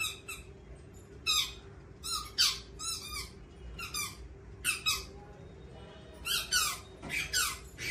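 Small birds chirping: short, quick calls that sweep downward, in irregular clusters about every second, over a faint steady hum.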